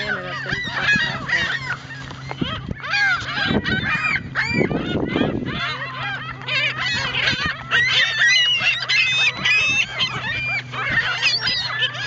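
A flock of gulls calling, many short arching squawks overlapping one another and growing denser in the second half.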